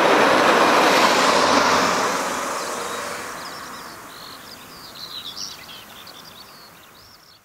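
A car passing close by, its tyre and engine noise peaking early and fading steadily as it drives away. As it fades, birds chirp faintly.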